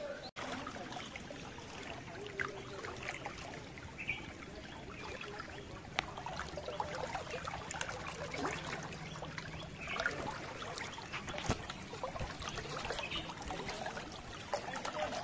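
Floodwater flowing against a concrete wall and pillar: a steady rush dotted with many small, irregular splashes.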